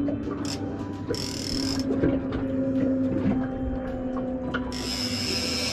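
Fishing reel whirring in two short bursts, about a second in and again near the end.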